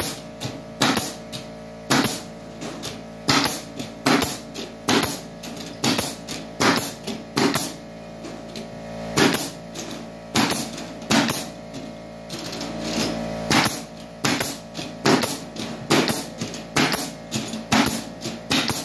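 Pneumatic stapler firing staples through metal lath into a wooden subfloor: sharp shots about two a second, with two short pauses. Background music plays with them.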